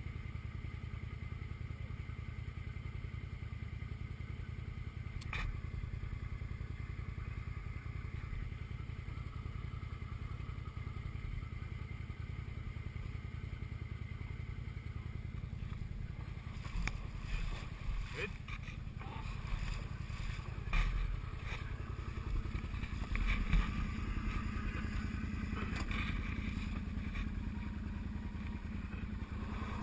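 ATV engine idling steadily, with scattered knocks and clanks from about halfway in.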